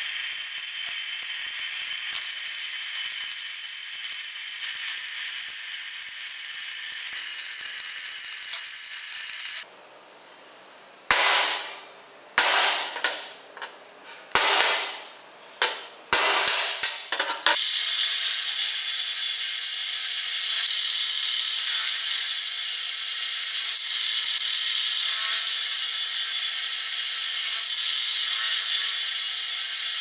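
Arc welding on a steel frame gives a steady crackling hiss for about ten seconds. Next come about seven sharp strokes of a hand tool cleaning slag off the welds. Then a drill press runs steadily, boring through the steel.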